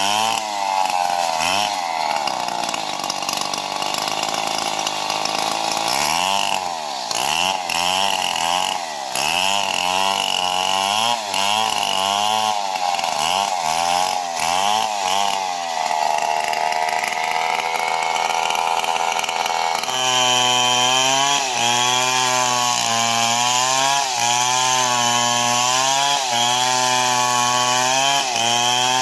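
Stihl MS 070 two-stroke chainsaw cutting neem wood, its engine pitch dropping and rising again and again as the chain loads up and frees in the cut.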